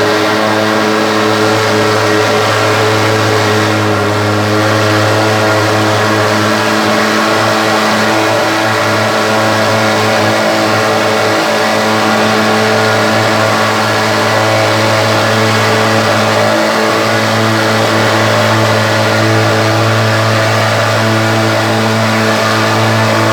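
Thermal fogger's pulse-jet engine running with a loud, steady buzzing drone.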